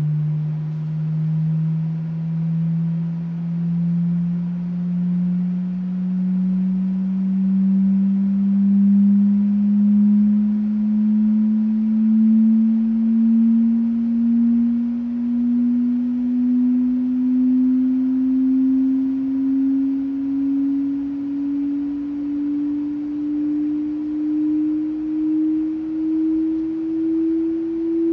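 Loudspeaker playing a slow sine sweep: one pure tone starting abruptly and rising slowly and steadily in pitch. It is exciting a glass bottle's Helmholtz resonance while the bottle is mostly filled with carbon dioxide.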